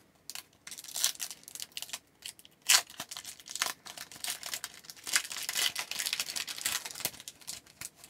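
A hockey card pack's wrapper being torn open and crinkled in the hands, an irregular crackle with sharp snaps, the loudest about three seconds in.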